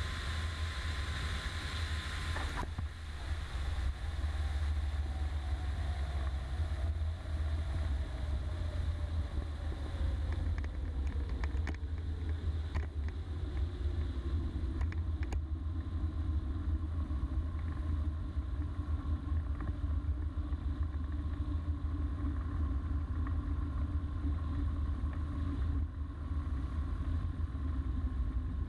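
Microlight trike's engine and propeller running as it rolls along the runway, its pitch falling steadily over about ten seconds and then settling at a lower steady note. A low, constant rumble of wind on the microphone runs underneath.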